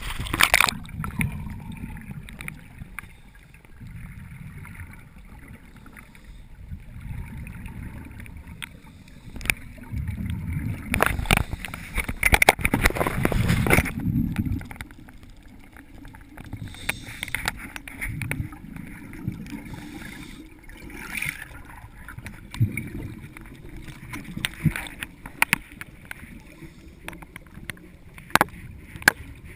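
Muffled underwater sound through a camera housing as scuba divers descend: regulator breathing with irregular surges of exhaled bubbles, loudest about ten to fourteen seconds in. It begins with water sloshing over the camera at the surface.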